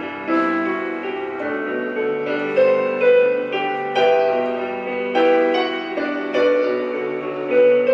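Piano playing a slow, gentle intro of chords and melody notes, a new note or chord about once a second, each left to ring and fade.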